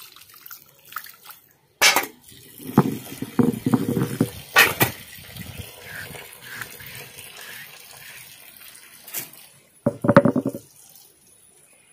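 Water poured and splashing over a stone grinding slab and its stone roller as they are rinsed and rubbed by hand, with irregular splashes and knocks. A brief louder sound comes near the end.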